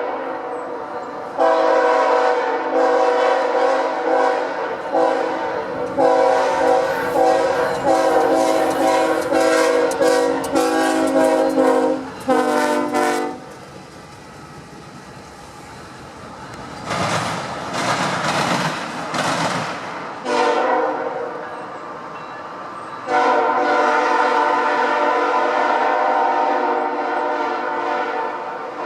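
Multi-chime air horn of a CSX GE Dash 9 locomotive sounded in a long run of long and short blasts, a horn show. About halfway it stops, and the noisy rush of the train going by is heard. Then comes one short blast and a long final blast near the end.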